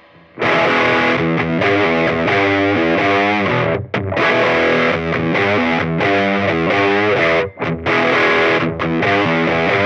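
Electric guitar (Gibson SG) played through an EarthQuaker Devices Crimson Drive germanium overdrive into a Fender Champ amp: a driven, overdriven lead line with string bends and vibrato, starting about half a second in, with a couple of short breaks between phrases.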